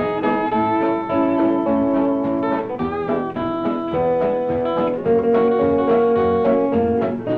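Western swing band recording, with a steel guitar playing the lead melody over guitar and rhythm section.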